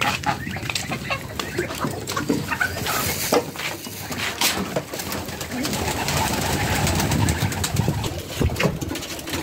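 Domestic pigeons cooing, with a scattering of short, sharp knocks and rustles.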